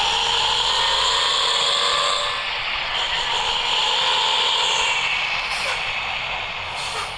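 Nissan CB bus's diesel engine and exhaust pulling away under load, the note rising in pitch, easing briefly about two and a half seconds in, then rising again before fading.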